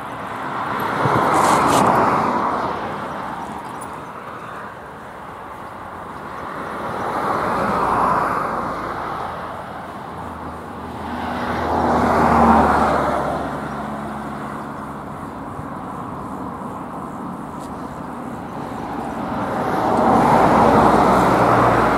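Road vehicles passing one after another, in four swells of tyre and engine noise that rise and fade, with a low engine hum under the one in the middle.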